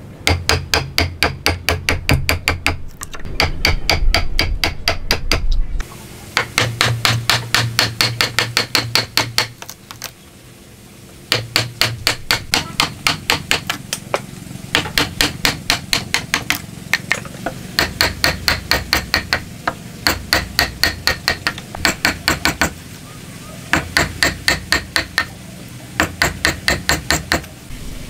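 Steel chisel being struck by a hammer, chopping into a hardwood block. The blows come in quick runs of about five a second, with short pauses between the runs.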